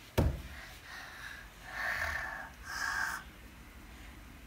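A short thump just after the start, then two breathy huffs about a second apart, each lasting about half a second, from a child.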